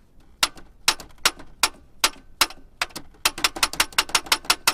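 Hammer tapping a steel roll pin into the shift linkage arm, metal striking metal: a run of sharp taps, spaced out at first, then coming quickly, several a second, from about three seconds in.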